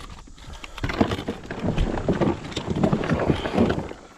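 Irregular knocks, clicks and rattles of gear being handled while a fishing scale is fetched, one hard knock after another for about three seconds.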